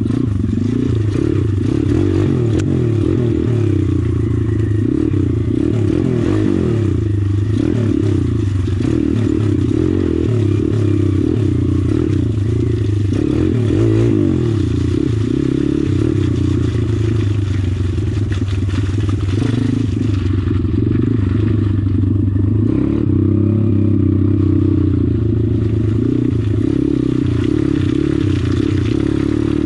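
A 140 cc YX single-cylinder four-stroke pit bike engine running under load off-road. Its pitch stays fairly steady and wavers a little with the throttle about a third of the way in.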